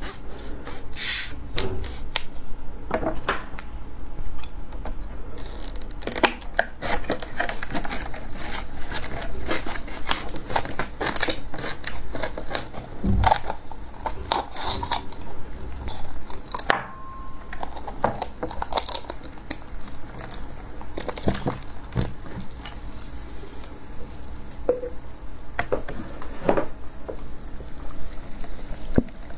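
Close-miked crackling and crinkling of a plastic cola bottle full of frozen cola as it is handled and cut open with scissors. Near the end comes a bite into the frozen cola slush.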